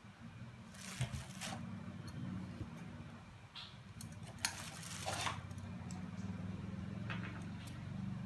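Felt pieces being handled and shifted over a felt work surface: several short soft rustles over a steady low hum.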